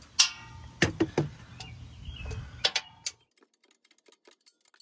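Metal hand tools clank against the underbody: a sharp clank with a brief ringing, then a few more knocks. About three seconds in the sound drops away to faint, rapid clicking of a socket ratchet turning the 13 mm bolt of an exhaust hanger.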